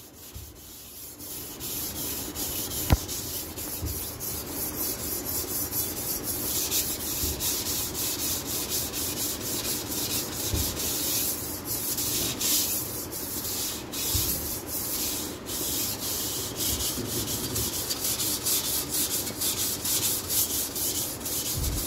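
Blade of a Master Kuo GL-500 tuna knife rubbed back and forth on a 600-grit Chosera sharpening stone: a steady, rhythmic scraping of steel on stone as the edge is worked. One sharp click about three seconds in.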